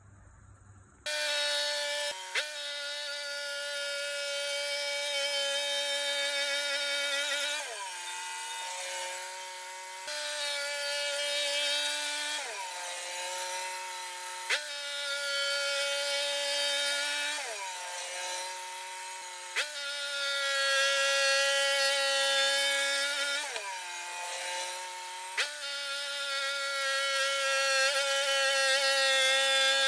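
Norwood portable bandsaw mill sawing a pignut hickory log: a loud, steady, pitched whine of engine and blade that starts abruptly about a second in. Its pitch drops and climbs back every few seconds as the cut goes on.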